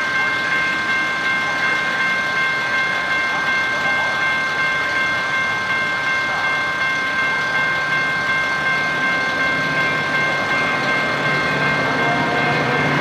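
Railroad grade-crossing warning bell ringing steadily at about two strokes a second. Near the end the rumble of the approaching Metra commuter train grows underneath it.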